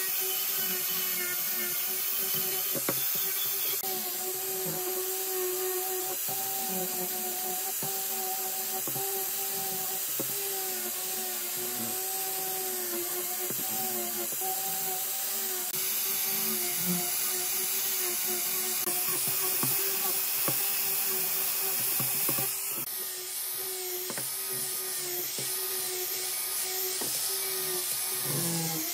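Electric angle grinder fitted with a sanding disc on a rubber backing pad, running with a steady high whine while sanding a wooden table leg, with the hiss of the abrasive on the wood.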